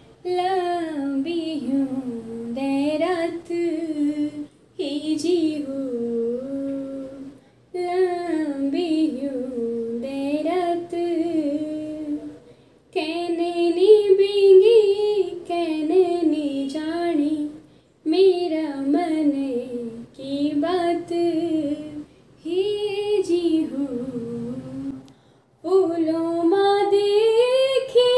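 A young woman singing solo and unaccompanied, in phrases of two to five seconds separated by short breaths. The melody wavers with ornamented turns, and the last phrase climbs and is held.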